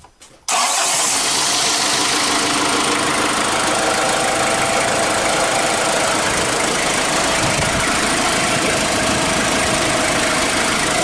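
Ford Ranger's WL-T 2.5 turbodiesel, with its EGR system removed, idling steadily with an open-bonnet diesel clatter; it starts abruptly about half a second in.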